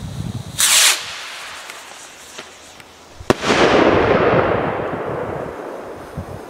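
Firework rocket: a short, loud hiss as it launches about half a second in, then one sharp bang as it bursts a little over three seconds in, followed by a fizzing spray of sound that slowly fades as the stars fall.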